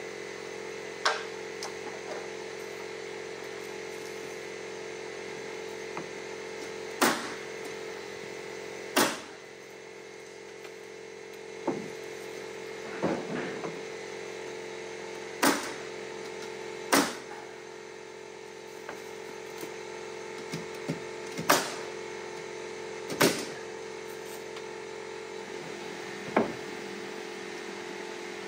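Nails being driven into wooden siding boards: about ten sharp single strikes, spaced a second to several seconds apart, over a steady machine hum.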